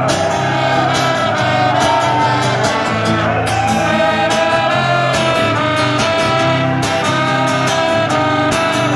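Live rock band playing an instrumental break between choruses: a melodic lead line over steady drums and bass.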